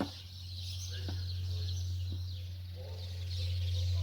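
Many small birds chirping in a dense, continuous chatter over a steady low hum, with a short click at the very start.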